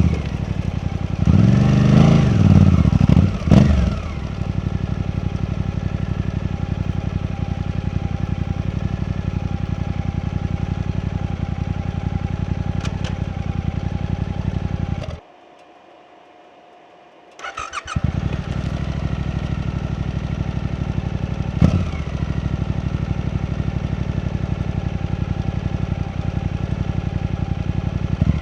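Suzuki V-Strom 800DE's parallel-twin engine revving up and down, then idling steadily. About halfway through it cuts out, and after about two seconds of quiet it is restarted and idles again.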